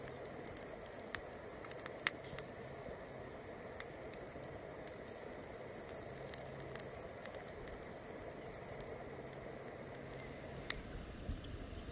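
Open cooking fire crackling under a roasting pork head: a steady hiss with scattered sharp pops, the loudest about two seconds in.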